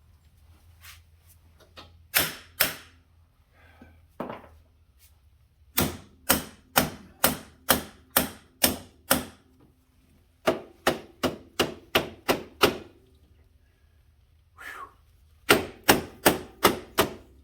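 Hammer blows on metal in quick runs, about two a second: two single strikes, then runs of eight, seven and six, each with a short ring. It is a tight-fitting suspension part on a Polaris Sportsman 1000 ATV being driven into place.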